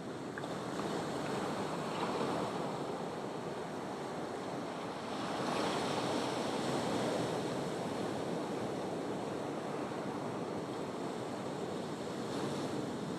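Ocean surf: a continuous wash of waves, swelling about two seconds in and again more strongly around the middle.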